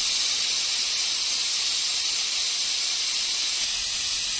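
Aluminium pressure cooker on the gas stove venting steam through its valve in a loud, steady hiss: the pressure is being let out after its whistles.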